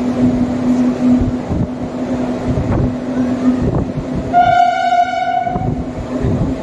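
Indian Railways express train running at speed with a steady rumble and hum from wheels on track. A little over four seconds in, a single steady-pitched train horn blast sounds for about a second and a half.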